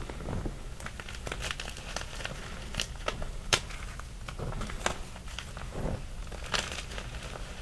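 Small chunks of gym chalk being crushed in loose chalk powder: scattered small, sharp snaps and crackles over a soft crunching rustle, the sharpest about three and a half seconds in.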